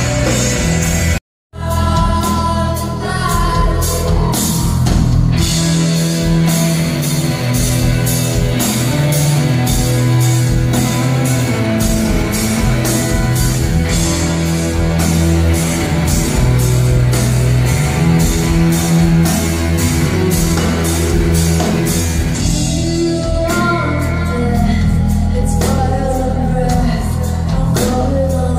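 Live rock band playing a song: electric guitars, a drum kit keeping a steady beat and a woman's lead vocal. The sound cuts out completely for a moment about a second in, then resumes.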